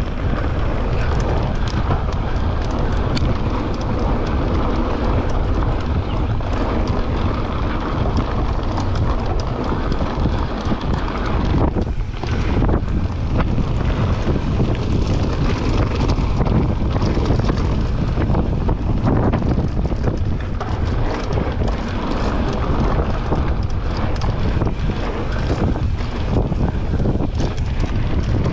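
Wind buffeting the microphone of a mountain bike rider's action camera during a fast trail descent, under tyre noise on dirt and gravel. Frequent short clicks and rattles from the bike run through it.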